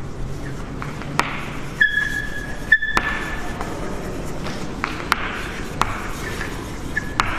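Chalk writing on a blackboard: scratchy strokes broken by sharp taps as the chalk meets the board, with a brief high squeak of the chalk about two seconds in.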